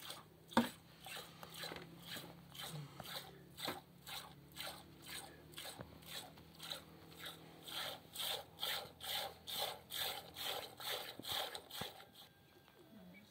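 Cow being milked by hand: milk squirting into a bowl in a steady rhythm, a little over two squirts a second, stopping about a second before the end.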